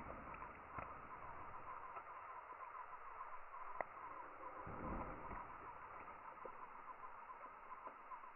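Outdoor field ambience: a continuous chorus of fast, high chirps, with a few sharp clicks and a brief low rumble about five seconds in.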